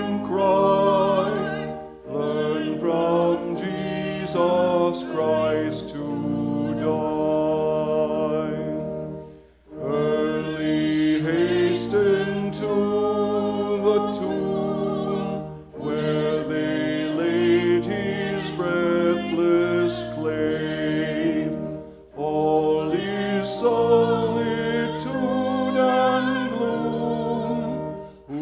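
A man singing a hymn solo, with vibrato, in long phrases broken by short pauses for breath.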